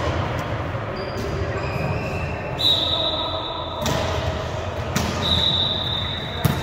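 Volleyball being hit and bouncing in a gym: several sharp thuds a second or so apart, ringing in a large hall over a murmur of voices, with two brief high squeaks.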